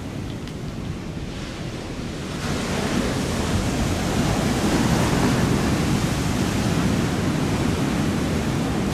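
Ocean surf rushing and washing, with wind buffeting the microphone; the rush swells about two and a half seconds in and stays up.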